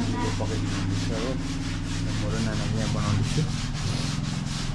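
Rapid, rhythmic scraping or rubbing strokes, about five a second, over a steady low hum.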